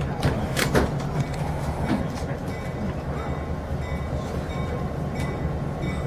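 Diesel locomotive engine running as the engine moves past at low speed, a steady low rumble, with a few sharp knocks in the first two seconds.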